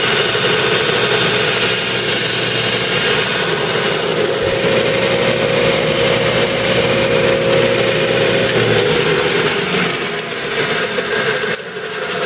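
Jet 4200A belt and disc sander running with no load, a steady motor hum with the belt and disc spinning, working normally. Near the end the hum drops away and a high whine falls steadily in pitch as the machine winds down.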